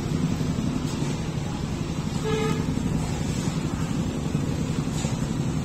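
Road traffic noise with a steady low rumble and a brief vehicle horn toot a little over two seconds in.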